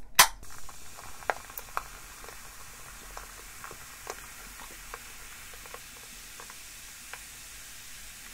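Aluminium can of Coca-Cola Zero Lemon cracked open with a sharp snap at the start. The cola is then poured into a ceramic mug, fizzing with a steady hiss and scattered small bubble pops.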